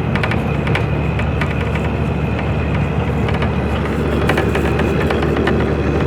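A vehicle's engine running steadily under a continuous road-noise hiss, with scattered sharp clicks and rattles throughout.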